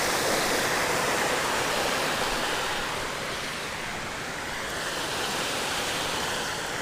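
Creek water pouring over rocks and concrete blocks at a small waterfall: a steady rushing that eases off a little about three seconds in, then rises slightly again.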